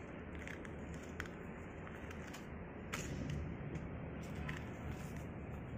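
Light crackling and rustling as half-dried raw-banana crackers are peeled off banana leaves and turned over by hand, with a few short sharp ticks, over a steady low background noise.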